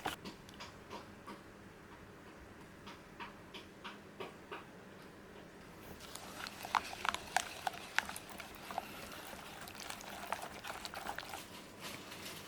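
Scattered light clicks and taps at an irregular pace, sparse at first and busier from about six seconds in.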